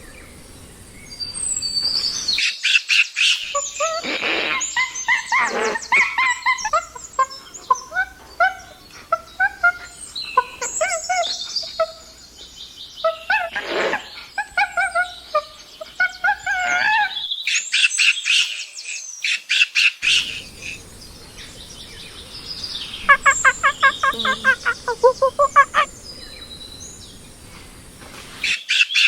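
Chimpanzees calling: bursts of rapid, high-pitched hoots and screams, with a fast, evenly spaced run of calls about three-quarters of the way through.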